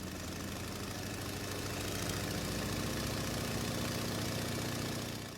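Propeller airplane engine running steadily for takeoff, slowly growing louder, then dropping away right at the end.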